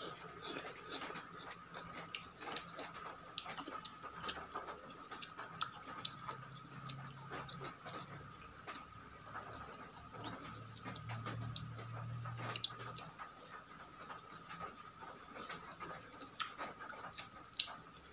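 Close-miked chewing and eating: frequent small wet mouth clicks and smacks, with a faint steady high tone underneath.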